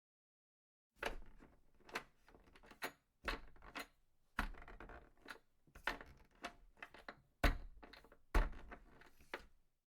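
A dozen or so irregular sharp knocks and clatters of hard objects, starting about a second in, the loudest two near the end.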